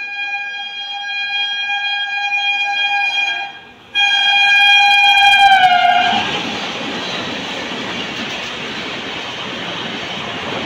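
Express train locomotive's air horn sounding two long blasts, the second louder and falling in pitch as the locomotive passes. From about six seconds in, the coaches rush past at speed with a steady loud rumble and rattle of wheels on rail.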